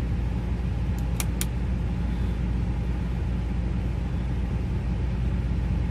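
Chevy Avalanche's V8 engine running steadily with a low hum. Three sharp clicks come close together about a second in.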